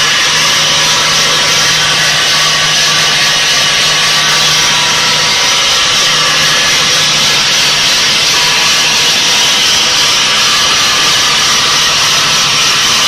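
Bridge saw's large circular blade cutting through granite blocks: a loud, steady, high grinding hiss with a low motor hum underneath that weakens about halfway through.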